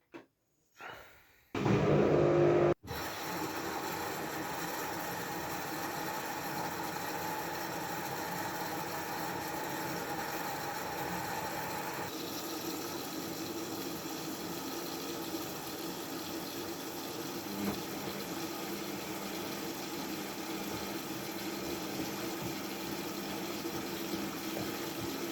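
Washing machine started: two small clicks and a loud beep about a second long, then the machine runs with a steady whir and hum that changes slightly about halfway through.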